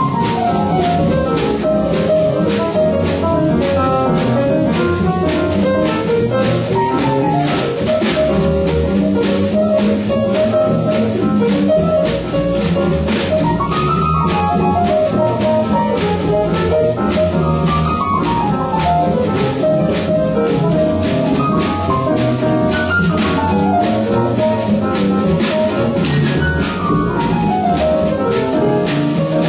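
Small swing jazz band playing an instrumental passage: tenor saxophone, piano and double bass over drums keeping a steady swing beat, with several quick falling runs of notes.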